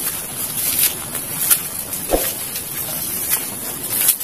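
Footsteps and leaves rustling as someone walks through dense undergrowth, a scatter of irregular brushing and crunching sounds over a steady hiss.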